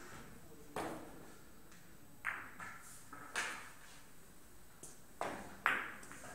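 Billiard balls clicking on a carom billiards table: about six sharp ball knocks spread over a few seconds, each with a short ring, as the balls are cued and strike one another.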